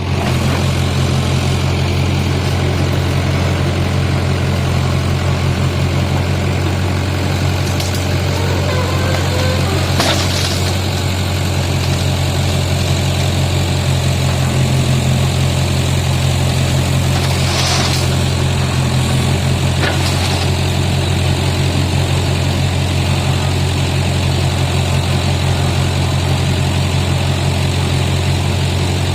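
Backhoe loader's diesel engine running steadily at an even pitch, with a few faint knocks over it.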